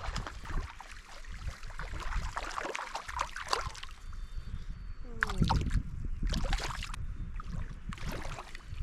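Irregular splashing and trickling water as a small hooked brook trout is pulled in at the surface, over low wind rumble on the microphone.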